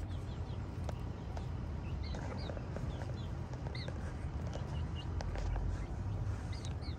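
Birds giving short, high chirps, scattered a handful of times, over a steady low rumble.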